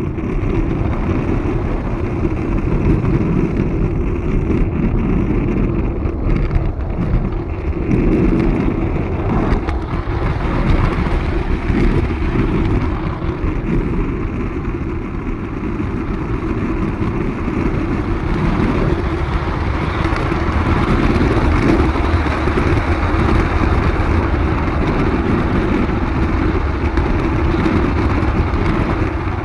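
Mamod Bolton Diesel model locomotive and flat wagon running along garden-railway track, heard from a camera riding on the train: a steady rumble of motor and wheels on the rails, with a few faint clicks.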